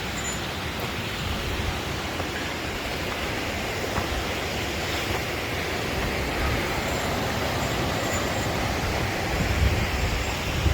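Steady rush of the Sheep River's flowing water, with some low rumble building near the end.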